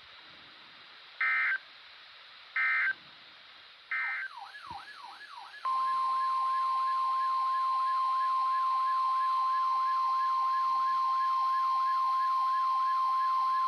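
Emergency Alert System tones. Three short buzzy SAME data bursts come about a second and a half apart. Then a siren-like tone wavers quickly up and down, and a loud steady 1050 Hz NWS attention tone comes in over it about six seconds in.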